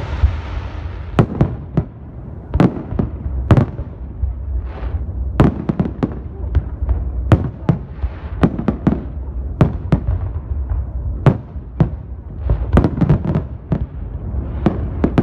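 Fireworks display: many aerial shells bursting in quick, irregular succession, with a hiss between some of the bangs.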